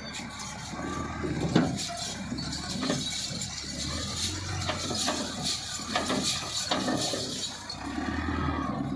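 Soil and clods pouring from a front loader's bucket into a tractor trolley: a run of clattering knocks and thuds, the loudest about one and a half seconds in, dying away near the end. A tractor engine runs low and steady underneath.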